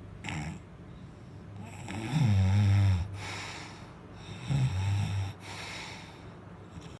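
A man snoring: a short noisy breath just after the start, then two deep snores, one about two seconds in and one about four and a half seconds in, each followed by a hissing out-breath.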